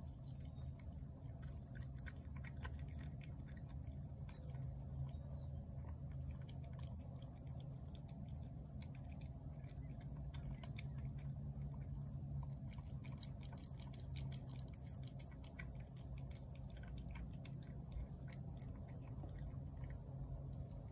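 A tabby cat eating wet cat food from a plate: quick, steady smacking and chewing clicks, over a low steady hum.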